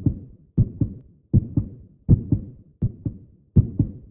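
Heartbeat sound effect: paired lub-dub thumps repeating steadily, about 80 beats a minute.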